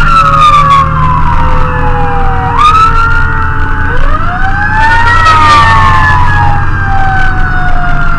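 Fire engine sirens wailing, two tones slowly falling and swooping back up out of step with each other, over the steady drone of the truck's engine.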